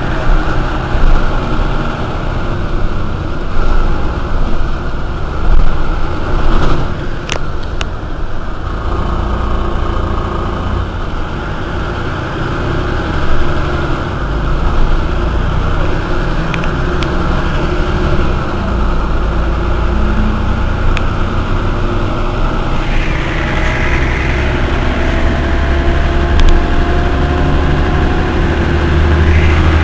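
Mercedes-Benz O405 N city bus diesel engine running with a steady low rumble. About 23 seconds in the sound grows louder and a faint whine slowly rises in pitch.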